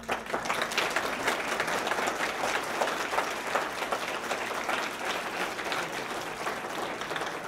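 Audience applauding, many hands clapping together; it breaks out all at once and holds steady.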